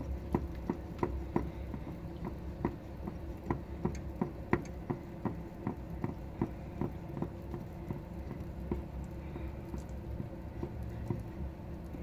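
Clicking of the black plastic filling tap under a Baxi gas boiler as it is turned by hand, two or three clicks a second that thin out after about seven seconds, over a steady low hum. The tap is being opened to top up system pressure after an E10 low-pressure error.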